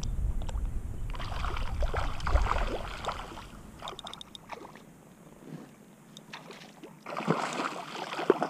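Water splashing as a hooked cutthroat trout thrashes at the surface, in two spells: one in the first few seconds and another near the end. A low wind rumble on the microphone fades out at the start.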